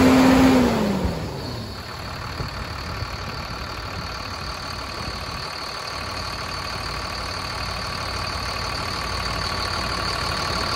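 Mercedes-Benz OM906LA 6.4-litre diesel engine coming down from raised revs: its pitch falls and it gets quieter about a second in. It then idles steadily with a thin high whine.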